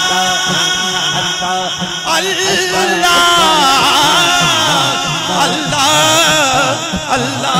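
A male voice singing a hamd, a devotional song in praise of Allah, in long ornamented lines with wavering pitch, through a microphone and loudspeakers.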